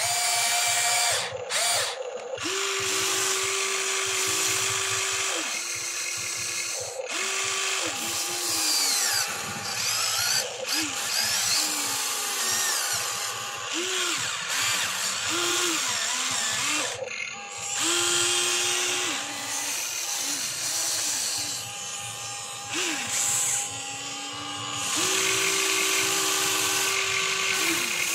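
Huina 1594 RC excavator's electric motors whining as the boom, arm and bucket move, in runs of one to three seconds that start and stop repeatedly, each with a short rise and fall in pitch, over a steady gear rattle.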